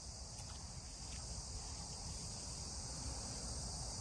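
Steady, high-pitched chorus of insects in summer grass, with a low rumble underneath.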